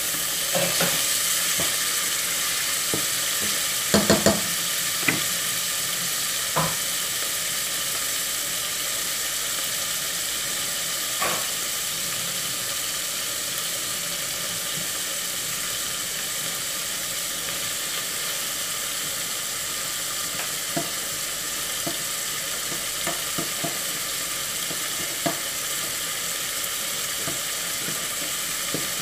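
Chicken breast strips and onion sizzling as they fry in a pot, with a spatula stirring and now and then knocking against the pot; three quick knocks about four seconds in.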